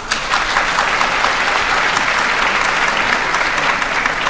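Audience applauding: dense clapping that eases a little near the end.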